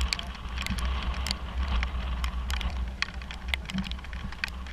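Motorcycle engine idling, a steady low rumble, with scattered light ticks and taps over it.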